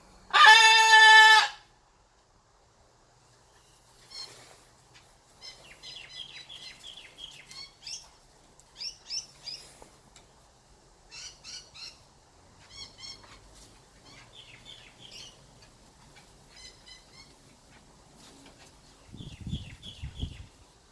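A blue-and-gold macaw gives one loud, pitched squawk lasting about a second, then small birds chirp in quick runs of short, high notes over the next dozen seconds. Near the end comes a brief burst of low rumbling thuds.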